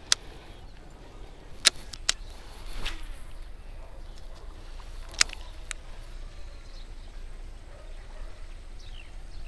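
A handful of sharp, isolated clicks and knocks from handling a baitcasting rod and reel, over a steady low outdoor rumble. A couple of faint, short falling chirps come near the end.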